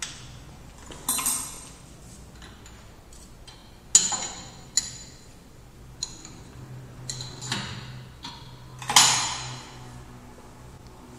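Sharp metal clicks and clanks from the blade seat of a Beiping 480Z circular saw blade grinder as it is slid to its scale mark and locked with its handle. There are about nine knocks, the loudest about four seconds and nine seconds in, the last of these ringing briefly.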